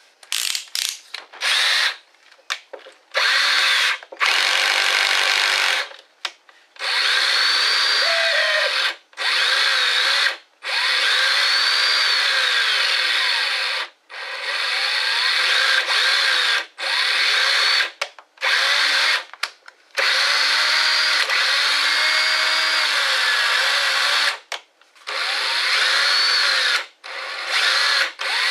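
Ridgid X2 cordless hammer drill running free under the trigger: a few short blips at first, then runs of several seconds with brief stops between them, its pitch rising and falling as the speed changes. This is a test run of a newly replaced variable-speed trigger switch, which is working.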